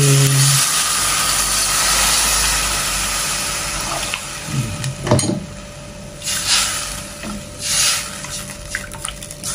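Water poured from a jug into a pot of sautéed spice paste, a steady splashing pour that thins out over about five seconds. Then a single knock, followed by a spatula stirring the liquid in short swishes.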